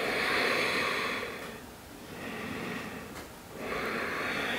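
Slow, audible breathing: three long, drawn breaths in and out, each lasting about a second or more, with short pauses between them.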